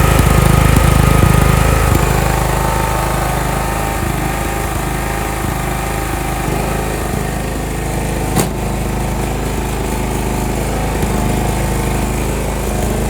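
John Deere 170 riding lawn mower's Briggs & Stratton engine running steadily, a little louder in the first couple of seconds, running well after being hand-started past a weak starter. A single sharp click comes about two-thirds of the way through.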